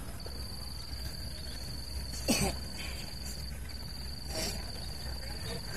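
Insect trilling steadily at one high pitch, breaking off briefly about three and a half seconds in. A short, sharp, louder sound cuts in about two seconds in, over a low steady outdoor rumble.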